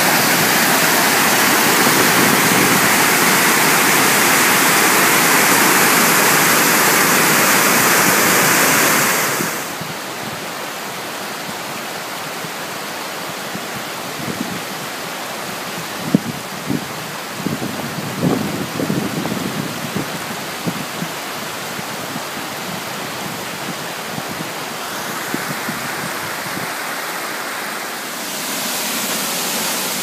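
Rushing water of a creek cascade and waterfall: a loud, close rush that drops to a softer steady rush about a third of the way in, with a few scattered splashes or knocks in the middle, then grows louder again near the end.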